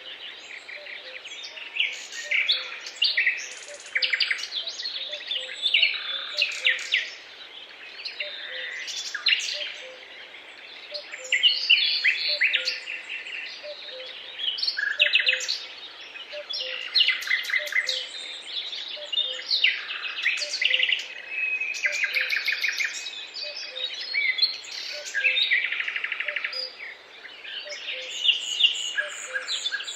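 Several songbirds singing at once, a dense chorus of overlapping chirps, trills and whistles, with a faint low note repeating steadily underneath.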